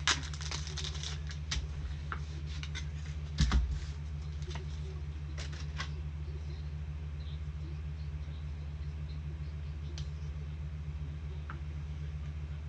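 Trading cards and their packaging being handled: a run of light clicks and rustles, with one louder thump about three and a half seconds in. A steady low electrical hum runs underneath, and the handling sounds stop about six seconds in, leaving mostly the hum.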